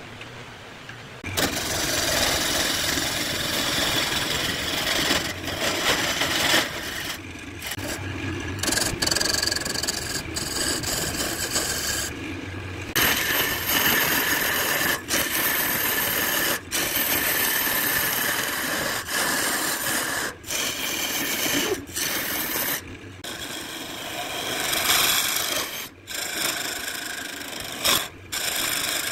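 Lathe gouge cutting a spinning bowl blank of colored pencils set in epoxy, a loud, steady scraping hiss of shavings peeling off. It starts about a second in and breaks off briefly many times as the tool leaves the surface.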